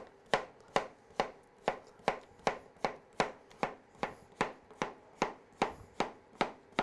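Chef's knife slicing courgette on a wooden cutting board: steady, even chops, about two and a half a second, each a sharp knock of the blade hitting the board.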